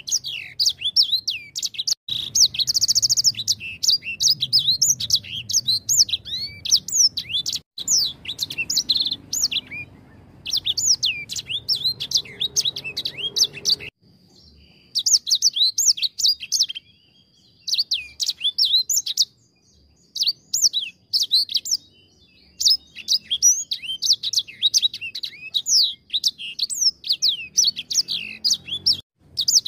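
Caged edel sanger, a small seedeater finch, singing a fast, twittering song of high chirps and trills in bursts separated by short pauses. Around the middle a thin steady whistle is held for a few seconds.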